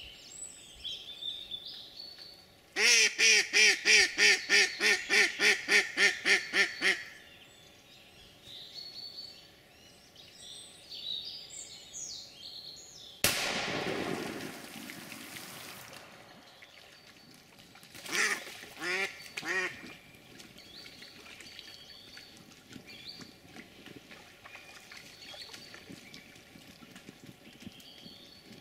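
Semenov-breed decoy duck quacking: a loud run of about fourteen quacks at roughly three a second, and three more quacks later on. Between them comes one sudden loud bang that fades over about three seconds. Small birds chirp faintly throughout.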